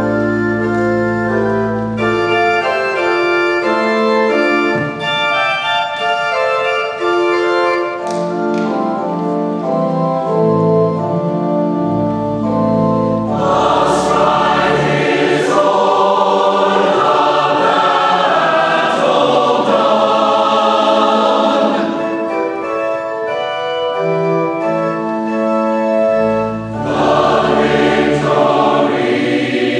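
Church organ playing sustained chords over deep bass notes; about halfway in, a large mixed choir comes in singing with it, easing off briefly before swelling again near the end.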